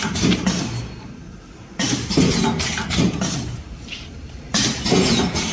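Rounded-corner vertical liquid packaging machine with a pneumatic metering pump cycling at about 21 bags a minute: a sharp burst of mechanical clattering about every three seconds, starting again near two seconds in and near the end, each fading over a second or so.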